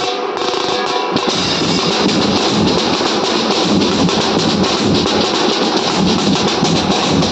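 Mumbai street banjo band playing loudly: an electric Indian banjo carries the melody over fast hand-drum beats and cymbals. The band comes in fuller about a second in.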